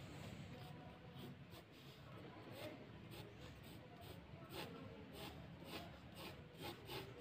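Graphite pencil scratching lightly across drawing paper in short, irregular sketching strokes, faint over a low steady hum.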